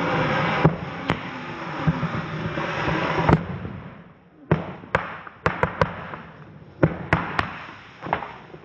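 Consumer fireworks going off: a loud hissing spray with small pops for about three seconds, then, after a brief lull, a quick string of sharp bangs and cracks.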